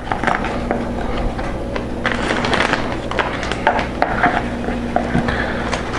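Clear plastic vacuum-sealer bag crinkling and rustling with many small crackles as smoked oxtails are handled and put into it.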